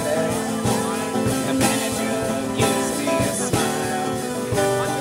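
Acoustic guitar strummed in a live solo performance, picked up through a microphone.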